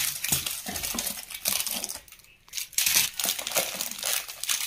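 Clear plastic jewellery pouches crinkling and rustling as hands rummage through them, with light clicks and clinks of metal bangles knocking together; a short lull about two seconds in.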